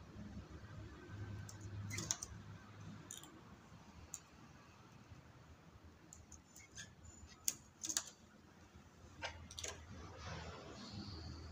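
Metal transfer tool and needles of a chunky knitting machine clicking irregularly as stitches are hung back onto the needle bed by hand, with a couple of louder clicks past the middle, over a low hum.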